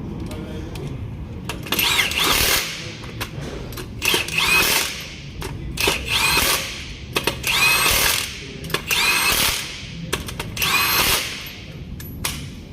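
Power tool run in about six short bursts, each with a whine that rises and falls in pitch.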